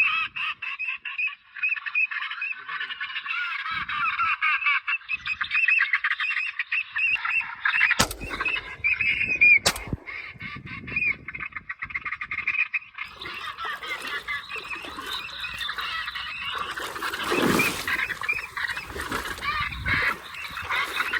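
Two shotgun shots about a second and a half apart, some eight seconds in, over a dense, continuous chorus of wetland animal calls.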